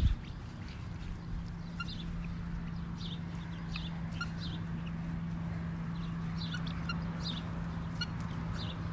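Helmeted guineafowl giving short, high chirping calls, many times and scattered through, over a low steady hum.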